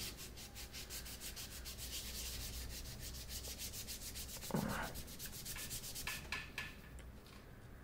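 Old thermal paste being wiped off a graphics card with quick back-and-forth rubbing strokes, several a second, that stop about six seconds in after a few last wipes. One brief low knock about halfway through.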